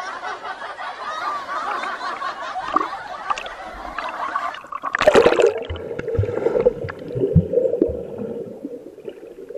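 Sea water splashing and sloshing around a waterproof action camera at the surface. About five seconds in there is a loud splash as the camera goes under, and after that the sound is muffled and gurgling, with bubbles and low thumps.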